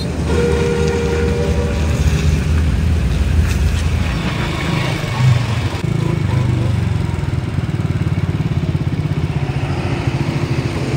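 Heavy truck engines running. A loaded truck drives past first, with a brief whine near the start. About six seconds in the sound changes to a steady, fast chugging idle.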